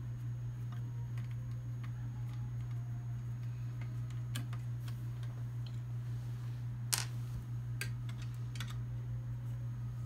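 Small clicks and ticks of a screwdriver backing out small screws from a circuit board, with one sharper click about seven seconds in. A steady low hum lies underneath.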